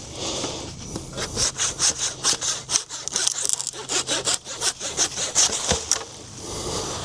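A saw cutting through wood with quick back-and-forth strokes, about four a second, stopping near the end.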